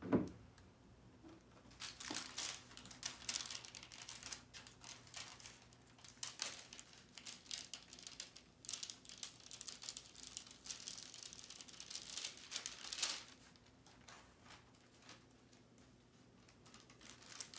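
Wax paper crinkling and rustling in short, irregular rustles as it is handled and lifted off a freshly heat-pressed stencil, quieter for the last few seconds, over a faint steady low hum.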